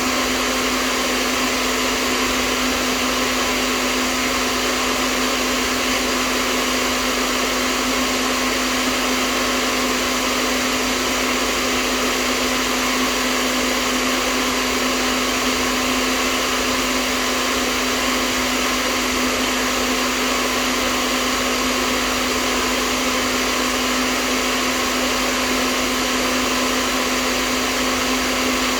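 Hair dryer running steadily: an even rush of blowing air with a constant hum underneath, unchanging throughout.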